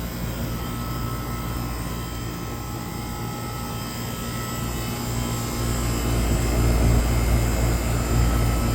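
Air-conditioner outdoor condenser unit running after its coil cleaning, a steady drone of the fan and compressor with a low hum that grows a little louder about five seconds in.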